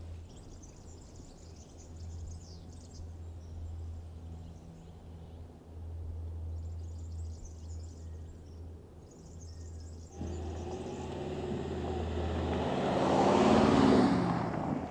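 Mercedes-Benz G500's V8 engine running at a low hum, then about ten seconds in the truck comes up close on a dirt track: engine and tyres on the loose ground get steadily louder, peak near the end and cut off suddenly.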